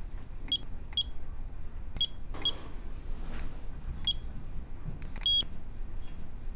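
Icare TonoVet Plus rebound tonometer beeping as it takes readings: five short high beeps at uneven intervals, then a longer sixth beep a little past five seconds in. Each beep signals that the instrument has taken a pressure measurement.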